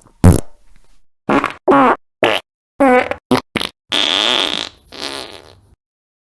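A quick string of fart sound effects, about nine separate farts of different lengths. Most are pitched, with the pitch wobbling up and down. The longest runs for most of a second about four seconds in.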